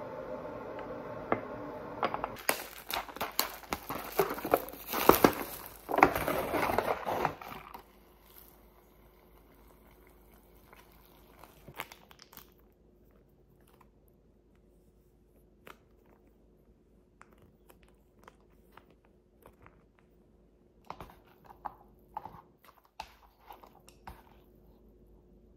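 Plastic sauce sachets and a cup-noodle lid being torn open and crinkled, loud for the first several seconds over a steady hum that fades early. After that come scattered light clicks of wooden chopsticks stirring noodles against a paper cup, bunched together near the end.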